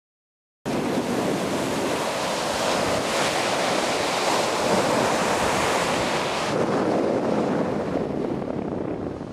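North Sea surf breaking and washing up a sandy beach, mixed with wind buffeting the microphone; it starts abruptly just under a second in, after silence. The hiss thins out about two-thirds of the way through.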